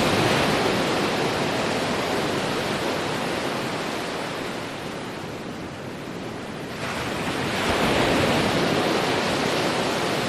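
Ocean surf washing on a beach: a wave's rush eases off about six seconds in, and the next one breaks and surges in about a second later.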